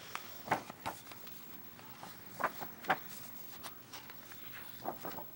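Pages of a large artbook being turned and handled: a string of short paper rustles and soft taps spread over a few seconds.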